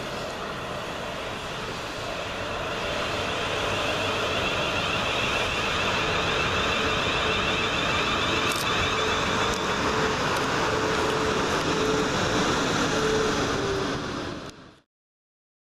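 Two coupled Class 450 Siemens Desiro electric multiple units running into the platform, with electric motor whine and wheels rumbling on the rails, growing louder as the train comes alongside. The sound cuts off suddenly near the end.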